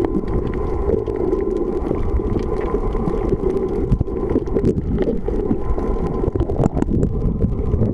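Muffled, steady underwater rumble picked up through a camera's waterproof housing, with scattered faint clicks.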